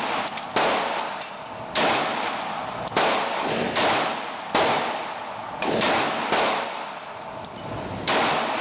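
Mossberg MC2c 9mm pistol firing slow, steady single shots, about nine in all, roughly one a second. Each shot rings out with a long echo off the walls of an indoor concrete range.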